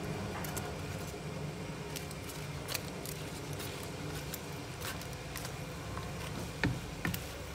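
Wooden spatula stirring chopped meat in a non-stick frying pan, with scattered light clicks and scrapes of the spatula against the pan over a steady low hum.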